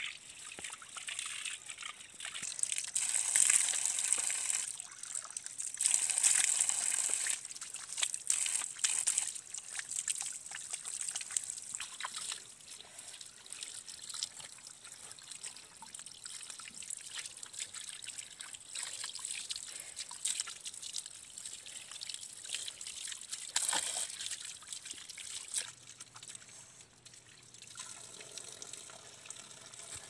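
Water running from a bamboo pipe spout and splashing onto wet ground and stones, with small irregular splashes throughout. It grows louder twice in the first eight seconds as hair and then skin are rinsed under the stream.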